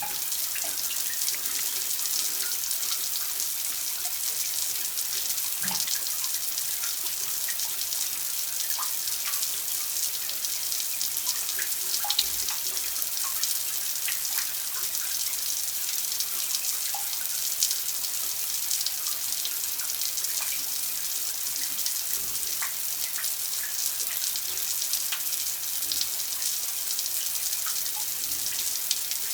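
Running water: a steady, even hiss of flowing water with small drips and plinks scattered through it.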